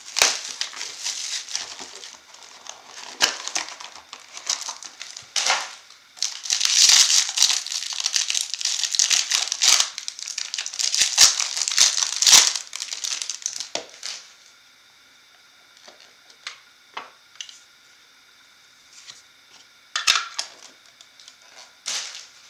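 A Bowman Chrome baseball card foil pack and its wrapping crinkling and tearing as hands rip it open. The crinkling is dense for about fourteen seconds and loudest midway. Then it goes mostly quiet, with a few small rustles and a short crinkle near the end.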